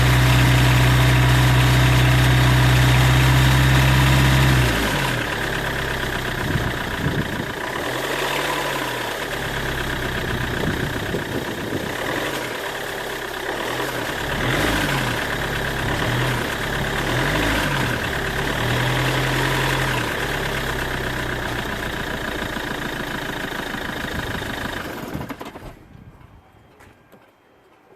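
Peugeot 806 two-litre diesel engine held at raised revs, then dropping to idle about five seconds in and being revved up and down several times. The revving brings out an abnormal extra noise that rises with engine speed. The sound dies away near the end.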